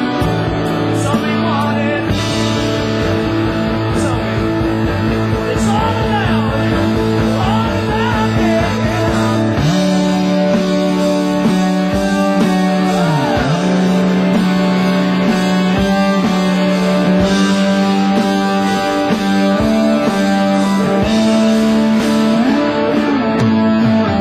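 Rock band playing an instrumental passage, guitars over a sustained, sliding bass line. The arrangement changes about ten seconds in, when the dense beat drops away and a held bass note with slides takes over.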